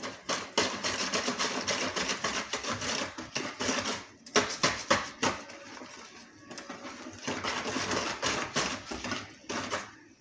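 Wire balloon whisk beating yeast-risen batter in a bowl, a fast run of clicks and swishes as the wires slap through the batter and against the bowl. It pauses briefly about four seconds in, then goes on.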